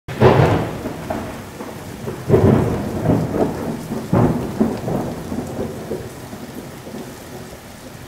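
Thunderstorm: several loud claps of thunder in the first half, each rumbling away, over steady rain, the thunder dying down toward the end.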